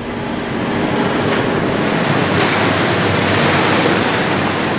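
Wind and sea rushing on the deck of a scallop trawler at sea. It is a steady noise that swells over the first couple of seconds.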